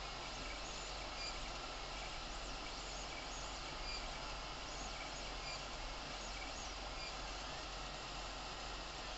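Creality Ender 3 3D printer at work: a steady fan whir with a low hum underneath, and short high stepper-motor tones coming and going as the print head moves along the wall of the print.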